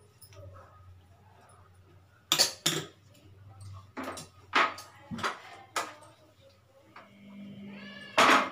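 Kitchenware being handled on the counter: a series of sharp clinks and knocks, about seven in all, the loudest near the end. A steady low hum starts about a second before the end.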